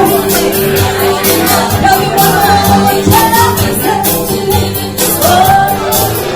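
Pop song playing: sung notes held over a steady beat.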